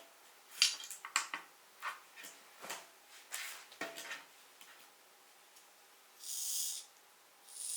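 Light clicks and knocks of a tiny plastic RC car being handled. Then come two short high-pitched whirring bursts about a second apart, from the 1/76 RC car's tiny brushed motor spinning up briefly as the throttle is blipped.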